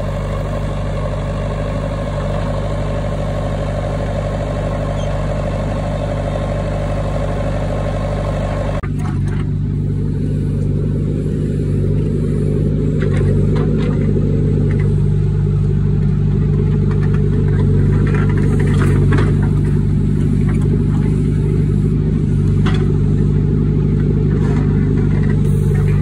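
JCB 3DX backhoe loader's diesel engine running steadily while the backhoe digs soil. About nine seconds in, the higher hiss drops away abruptly, leaving the low engine drone.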